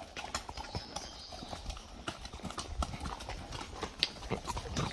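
Horse hooves clip-clopping, an irregular run of hoofbeats at about three or four a second.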